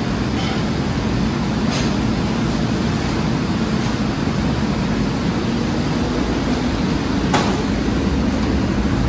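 LCD TV screen-splitting machine and workshop machinery running with a steady low drone. There is a light metallic click about two seconds in and a sharp knock about seven seconds in.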